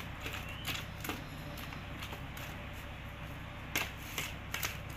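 Raw mango pulp being mashed in a steel bowl with a flat hand tool: soft scraping with scattered clicks of the tool against the bowl, sharper and more frequent in the last second and a half.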